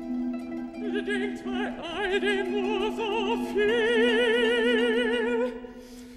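A high operatic voice sings a wavering phrase with wide vibrato, then holds one long note that breaks off about five and a half seconds in. Under it the orchestra holds a steady low note.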